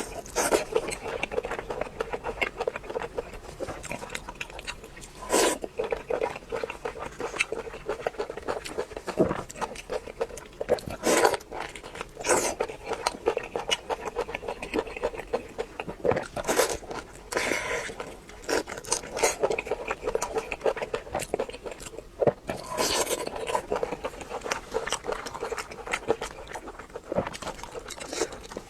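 A person biting and chewing crunchy fried food: a steady run of crackling crunches, with several louder bites scattered through.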